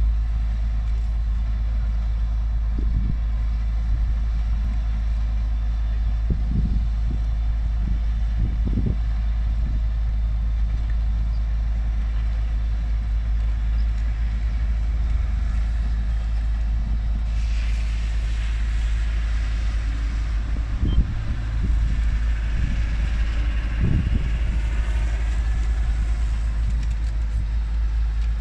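Fire engine running with a steady low rumble, with a few dull knocks. A higher hiss joins for several seconds past the middle.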